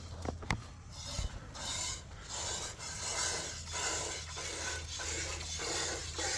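Rhythmic scraping strokes, about one and a half a second, starting about a second in.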